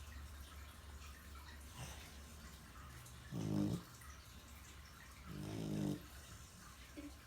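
Snoring: two snores about two seconds apart, each lasting under a second, over a low steady hum.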